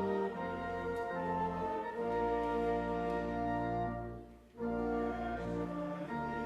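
Organ playing a hymn in held, sustained chords, with a short break between phrases about four and a half seconds in.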